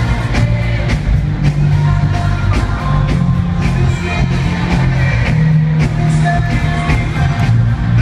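Loud live rock-pop band music in an arena: drums keeping a steady beat of about two strokes a second under sustained bass notes and melodic guitar or keyboard lines.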